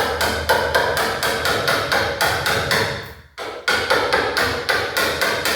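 Rapid, even hammer blows on a chisel cutting into the edge of a plywood door, about four or five ringing strikes a second, with a short pause a little past the middle. The strikes are deepening the mortise for a door lock.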